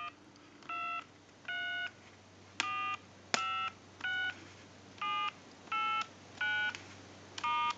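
Touch-tone (DTMF) keypad tones from a BellSouth Trimline telephone dialing in tone mode: about ten short two-tone beeps, one key at a time roughly every 0.7 s, with a couple of sharp clicks about three seconds in. Each key now gives its tone, the sign that tone dialing works with the replacement IC.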